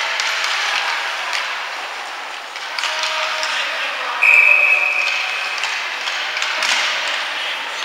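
Referee's whistle in an ice hockey game: one short, steady, high blast about four seconds in, the loudest sound here, over ongoing clatter of sticks, skates and puck and background voices.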